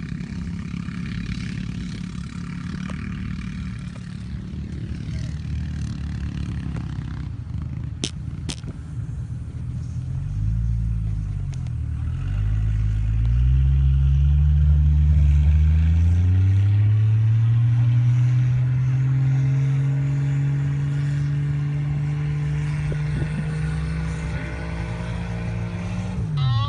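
4x4 vehicle engine running under load while driving up a sand dune: it runs low and steady, revs up and down twice, then climbs in pitch and holds a high, loud drone before dropping sharply near the end.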